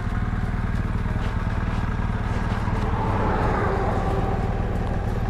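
BMW R1200GS Adventure's boxer-twin engine idling with a steady low pulse. A broader swell of noise rises and fades about three to four seconds in.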